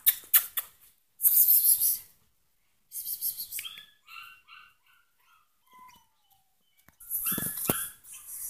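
Bernese mountain dog puppy giving short, high-pitched yips and small barks, spaced out with quiet gaps, with a louder, harsher burst near the end.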